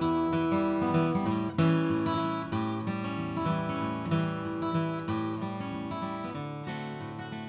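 Background music: acoustic guitar strumming chords, slowly fading out.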